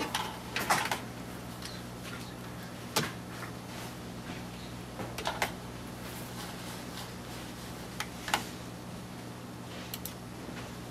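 Scattered sharp clicks and light knocks from hands handling a webcam, USB plugs and a computer mouse on a desk, over a steady low hum.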